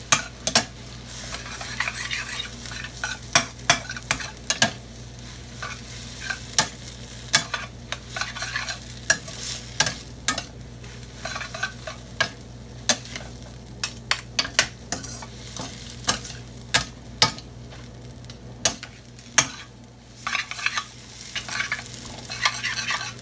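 Metal spoon and spatula clanking and scraping against a stainless steel skillet as glass noodles are tossed and stir-fried, over a steady sizzle. The clanks come irregularly, at times several a second, with a short lull near the end.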